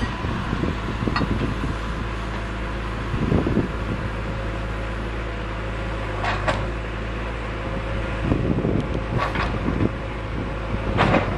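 Steady low mechanical hum, like an engine or motor running, with a few short noises breaking in about 3, 6, 8 and 11 seconds in.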